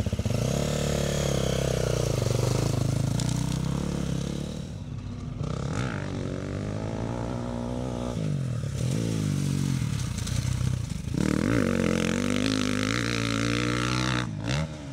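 2022 KTM 350 SX-F's four-stroke single-cylinder motocross engine being ridden hard, its revs rising and falling again and again.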